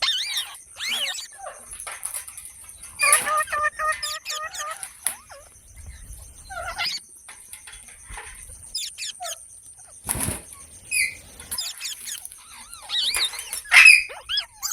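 Parrot calling: a string of short chirps and squawks that glide up and down in pitch, with a held, even-pitched call about three seconds in and a brief rushing noise about ten seconds in.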